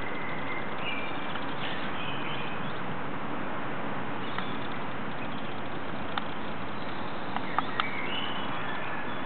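Songbird calling: a few short whistled phrases over a steady hiss, with several sharp clicks in the second half.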